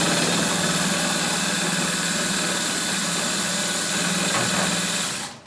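Homemade electric lift on an antique seed packing machine, hauling a seed bucket up its inclined track: a steady motor hum with machine noise, which cuts off shortly before the end.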